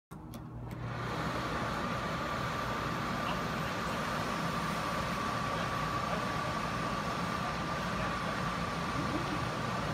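Electric inflation blowers running steadily, filling a giant inflatable: a constant rush of air with a steady high whine, building up over the first second.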